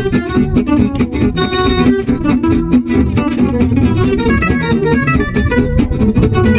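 Background music: acoustic guitar with quick plucked and strummed notes.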